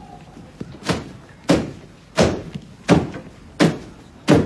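A man stamping his shoes down on wrapped flower bouquets on a hard floor, crushing them: six heavy thuds about every 0.7 s, a noise loud enough to be objected to.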